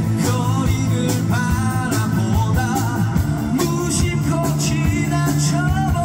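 A man singing into a microphone over a live rock band, with electric guitars and a drum kit keeping a steady beat.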